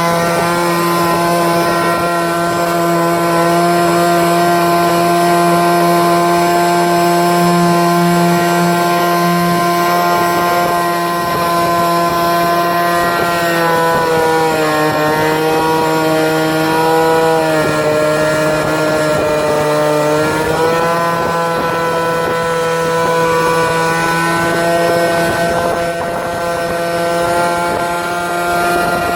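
Boxwing RC model aircraft's propeller motor running steadily at high speed. Its pitch drops from about halfway through, then climbs back to the same speed a few seconds later as the throttle is eased back and opened up again.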